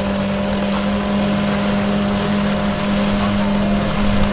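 Small fishing boat's engine running at a steady high speed, a constant hum over the rush of wind and water as the hull moves through the sea.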